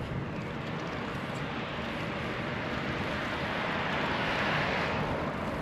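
Wind buffeting the microphone and a rushing noise while riding a bicycle. The rush grows louder about four seconds in, then eases off.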